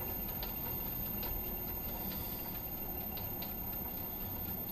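Myford Super 7B lathe turning very slowly in back gear, its three-phase motor run from an inverter turned down to about 5 hertz: a steady low mechanical rumble from the drive and gear train, with a few faint clicks.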